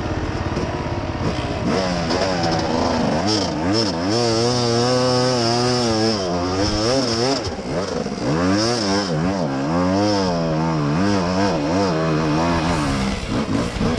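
Enduro motorcycle engine revving up and down over and over under load on a steep, rough trail climb, its pitch rising and falling every half second or so.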